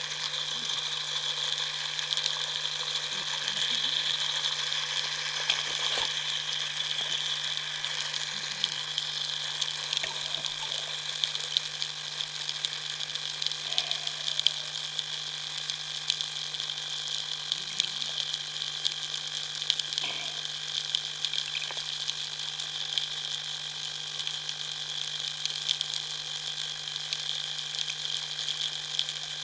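Underwater ambience picked up by a camera in its housing: a steady hiss with dense, irregular clicking and crackling over a low steady hum.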